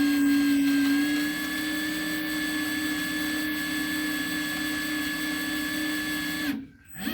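Handheld power drill running a small bit into a broken steel fender bolt, a steady whine that settles slightly about a second in, stops near the end and briefly starts again.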